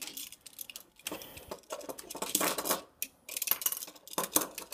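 Small toys being handled and set back in place: a quick, irregular series of clicks, taps and light clattering, with some fumbling.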